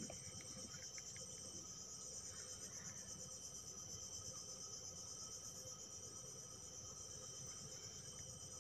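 Faint, steady, high-pitched chorus of insects, shrilling without a break over a low rumble.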